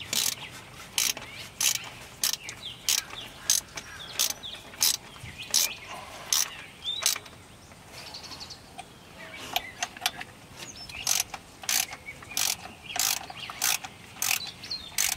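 Hand ratchet wrench clicking on its back-strokes while tightening the water-pump mounting bolts, in a steady rhythm of about one or two strokes a second. It pauses briefly a little past halfway, then resumes a little faster.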